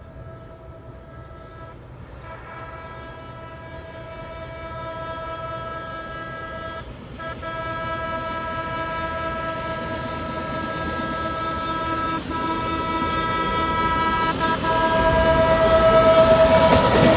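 Air horn on railway equipment held on in long blasts, with only a few very short breaks, growing steadily louder as it approaches.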